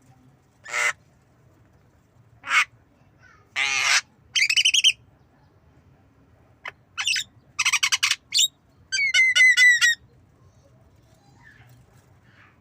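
Javan myna calling: a string of short, harsh calls spaced a second or two apart, then a quick run of about eight whistled notes near the end.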